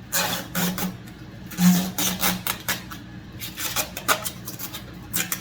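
Thin plastic protective film being peeled and torn off a new ice maker: irregular crinkling and crackling, in quick clusters.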